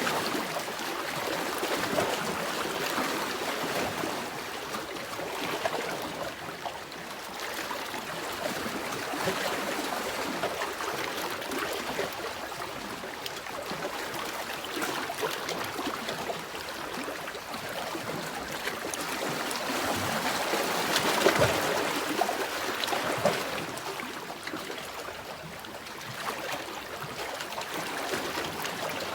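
Sea waves washing in and draining back: a continuous rush of water that swells and fades, with a louder surge about three-quarters of the way through.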